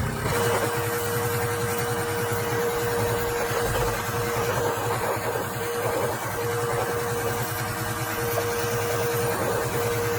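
Pressure washer running steadily: a motor-driven pump hum with a fast low pulsing and the hiss of the water spray.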